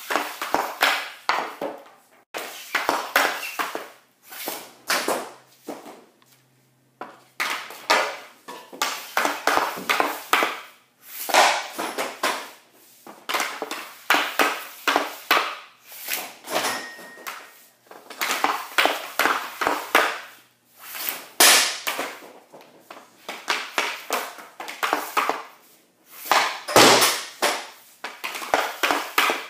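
Hockey pucks being shot one after another off a plastic shooting pad: sharp clacks of the stick blade on the puck and scraping of the blade on the pad, with pucks smacking into the net and the plywood boards behind it. The impacts come in quick bursts every second or two, with a short pause about six seconds in.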